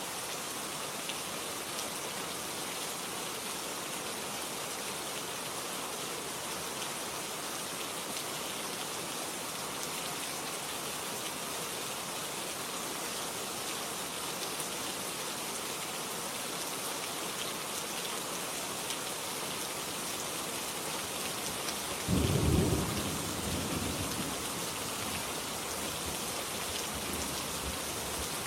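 Steady rain falling, with a rumble of thunder breaking in suddenly about 22 seconds in and rolling away over the next few seconds.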